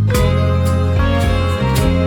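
Background music: plucked-string instrumental with a new entry right at the start, struck notes falling about every half second over a held bass.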